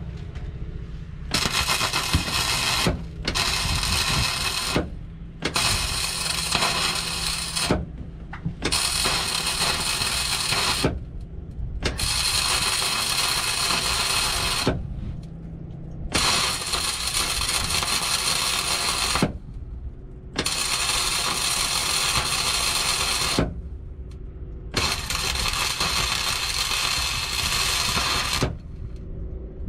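Wire-feed welding arc from a Miller XMT 304 with a 12VS suitcase feeder running ER71T-GS self-shielded flux-cored wire, crackling in about eight runs of two to four seconds with short pauses between, as a gap is built up against an aluminum backing plate. A steady low hum runs underneath.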